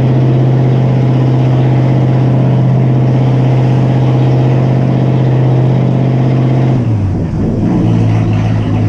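1974 Century Resorter's 302 Ford V8 inboard running very loud through unmuffled exhaust, held steady at about 2000 rpm. About seven seconds in the engine speed drops to a lower steady pitch.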